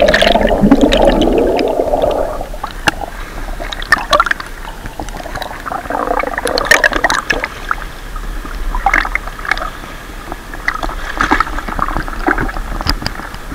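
Water around a submerged action camera: a muffled, bubbling rush that fades over the first two or three seconds, then irregular splashing and sloshing as the camera bobs at the surface among swimmers.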